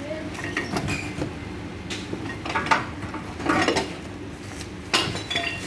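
Several sharp metallic clanks and knocks over a steady low hum, the loudest about two and a half seconds in, with more near three and a half and five seconds.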